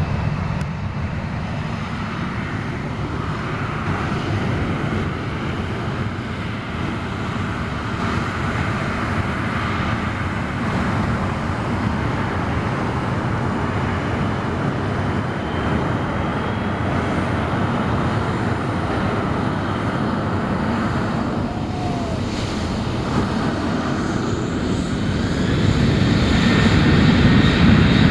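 Aircraft jet engines running steadily, growing louder near the end with a faint rising whine.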